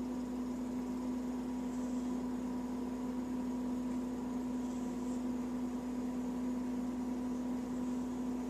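A steady machine hum, with faint soft breaths of a sleeping, snoring cat about every three seconds.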